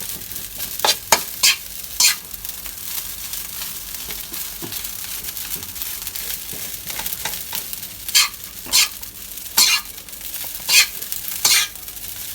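Rice frying in hot oil in a pan with a steady sizzle, while a utensil stirs and presses it against the pan in short, sharp strokes, a few about a second in and a run of them in the second half, breaking up clumps of rice as it fries toward golden.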